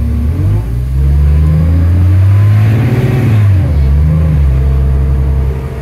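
Transit bus's Cummins ISL diesel engine accelerating, heard from inside the bus: the engine note climbs for about three seconds, then drops sharply as the Allison automatic transmission shifts up, and settles after a second smaller rise and fall.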